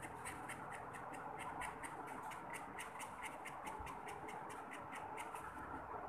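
Felt-tip sketch pen scratching quick short strokes on chart paper, about five a second, as stripes are drawn.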